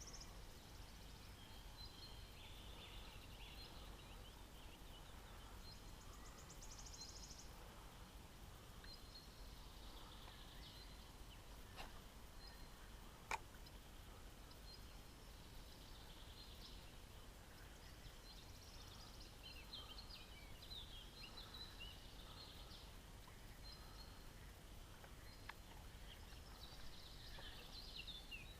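Faint birdsong from several small birds, scattered chirps and short trills throughout, with two sharp clicks about twelve and thirteen seconds in.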